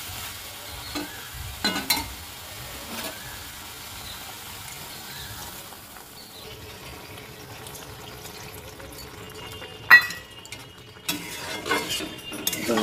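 Metal spatula stirring and scraping soya chunks and potatoes in a sizzling pan. One sharp metallic clink comes about ten seconds in, and then busier scraping and clattering follow.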